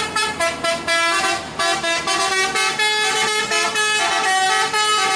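Truck's multi-tone musical air horn playing a rapid tune of short notes, several a second and changing in pitch, with a brief break about a second and a half in.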